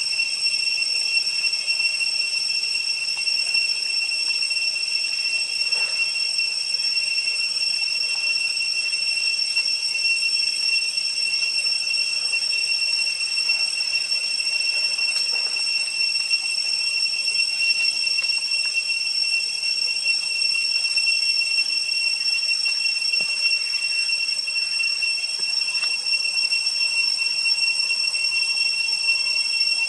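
A steady, high-pitched insect chorus drones without a break, its level fluttering rapidly. Faint small ticks and rustles sound now and then beneath it.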